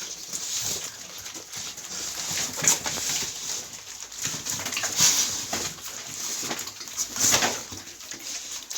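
Pigs squealing again and again, the loudest squeals about two seconds apart.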